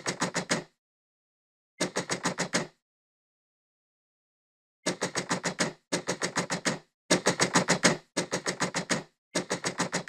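Rapid knuckle knocking on a door, in bursts of six to eight quick knocks. The bursts come a second or two apart at first, then almost back to back in the second half, like an insistent caller.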